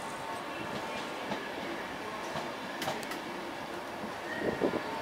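Passenger train coaches rolling past at a station platform: a steady rumble with a few sharp clicks from the wheels over rail joints about three seconds in.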